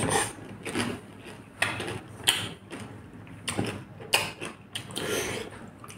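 Close-up chewing of a mouthful of pani puri, the crisp fried puri shell crunching in about seven irregular bursts.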